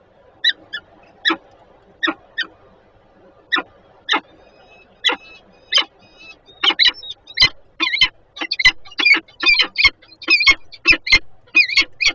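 Peregrine falcon calling: short, harsh calls, a few spaced ones at first, then coming quickly in rapid series, several a second, from about halfway.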